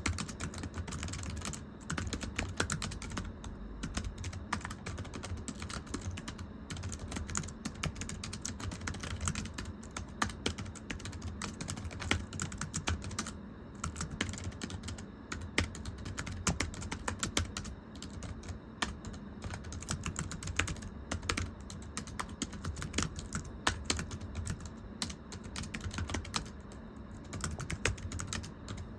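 Steady typing on a thin, low-profile computer keyboard: a dense run of light, flat-sounding key taps, with brief pauses every few seconds.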